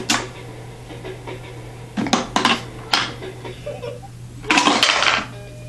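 Clicks and hard plastic knocks from a toy alphabet train being handled and its buttons pressed, a few separate knocks followed by a short burst of rattling clatter near the end.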